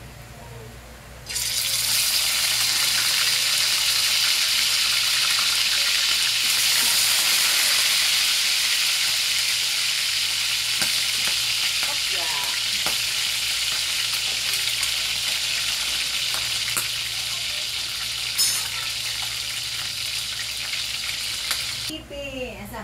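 Braised adobo chicken pieces frying in hot oil in a stainless steel pan: a loud sizzle that starts suddenly about a second in as the chicken goes into the oil, runs steadily, and cuts off near the end.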